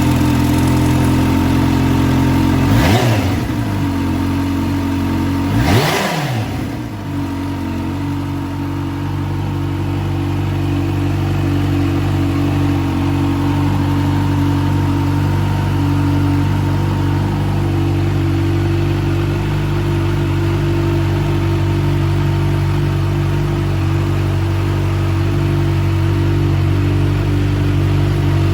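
Kawasaki Ninja H2 SX SE+ supercharged inline-four idling through an aftermarket Trick Star silencer, just after starting. It is blipped twice, about three seconds apart, each rev rising and falling quickly, then settles back to a steady idle.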